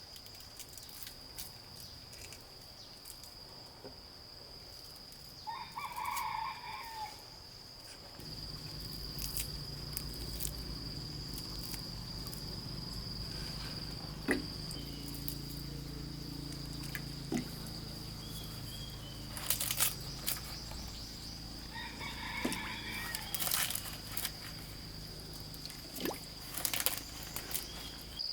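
A rooster crowing twice, once about six seconds in and again near the end, over a steady high-pitched tone. From about eight seconds a low steady hum joins, with scattered sharp knocks.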